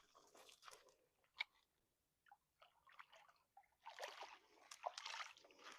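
Faint, scattered splashing and crackling at the water's edge as a hooked channel catfish is brought in by hand, with a single sharp click a little over a second in and a busier stretch of splashing and rustling near the end.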